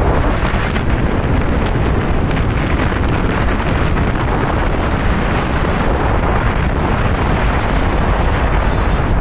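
Wind blowing hard across the microphone: a loud, steady rumbling noise with no breaks.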